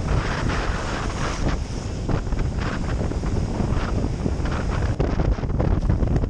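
Wind buffeting the microphone over shallow ocean surf washing in and around the legs of someone wading, the rush of water surging now and then.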